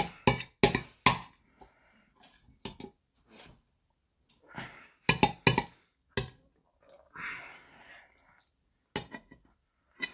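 A metal table knife and spoon clinking and scraping against a ceramic plate as food is cut and scooped, with sharp irregular clinks, and softer chewing sounds in between.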